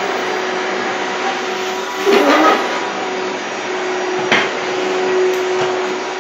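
Vacuum cleaner running loudly with a steady hum, its floor head being pushed over a wooden floor. About two seconds in there is a brief louder surge, and a little after four seconds a short knock.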